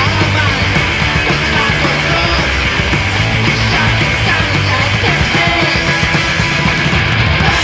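Loud psychedelic punk rock band recording playing without a break, with a dense wall of band sound.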